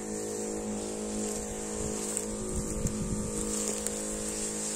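Motorized weed sprayer running at a steady pitch, with a constant hiss, while spraying the grass from its lance.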